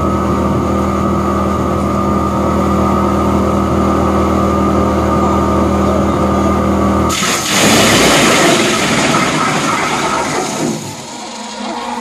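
Disc wood chipper running with a log being fed into it: a steady loud machine hum with several fixed tones, which changes suddenly about seven seconds in to a louder, rougher chipping noise that eases off near the end.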